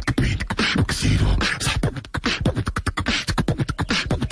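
Human beatboxing: a fast, continuous run of percussive mouth sounds, deep pops mixed with hissing clicks.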